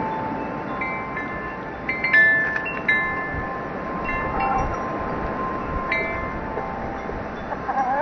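Wind chimes ringing irregularly in a breeze: scattered single and clustered strikes of bright metal tones that ring on, over wind noise on the microphone. A rising pitched call begins near the end.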